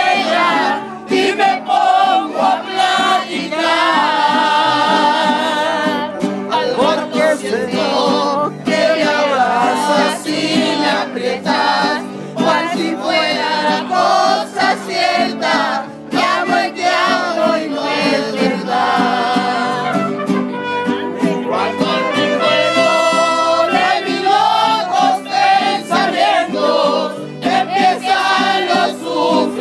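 A group of voices singing together loudly, with music behind them.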